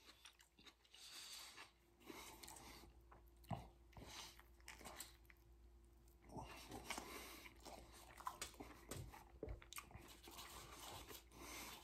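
Faint mouth sounds of a man chewing a vegetarian burrito in a soft flour tortilla, with small wet clicks. A fresh bite about halfway through brings busier chewing for the rest.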